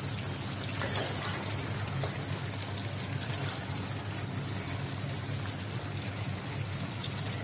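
Chicken and potato curry bubbling steadily in a large aluminium pot, the biryani's salan cooking down to nearly ready, over a steady low hum.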